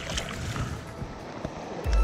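Hands splashing and swishing in shallow river water as they are rinsed. An electronic music track with a heavy beat cuts in right at the end.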